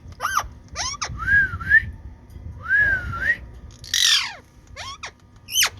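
Green ring-necked parrot (rose-ringed parakeet) calling: several short, sharp rising-and-falling calls, two longer wavering whistles, and a harsher screech about four seconds in.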